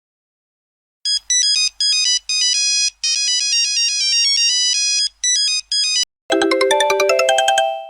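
Old mobile phone ringtones played one after the other: first a high, buzzy single-line melody of beeping notes in short phrases, lasting about five seconds, then after a brief break a lower, fuller polyphonic melody with a quick ticking beat that fades out near the end.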